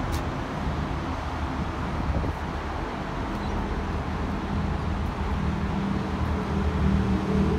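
Sydney Trains Waratah electric double-deck train pulling into the platform and slowing to a stand: a low rumble, with a steady hum of its electrical equipment setting in about halfway through.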